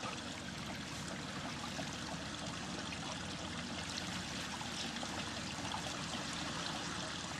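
Steady rushing of running water, an even noise with no breaks.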